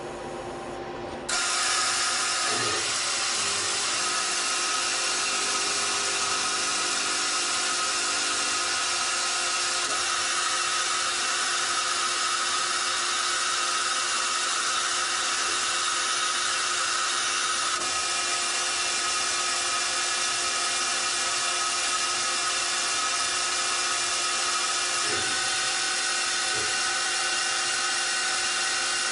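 Citizen Cincom L12 VII Swiss-type CNC lathe machining a brass part: a steady high machine whine of spindles and cutting tools, which jumps suddenly louder about a second in.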